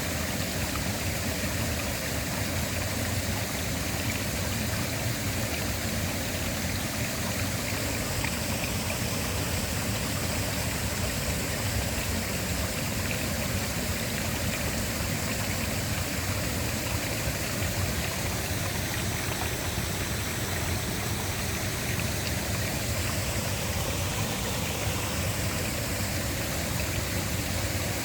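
Waterfall: falling water making a steady, even rush that does not change.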